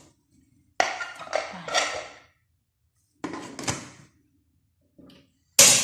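Metal steamer pot and lid clattering as the stacked string-hopper trays are handled and set to steam: two bouts of knocks, then one loud clang near the end that rings briefly.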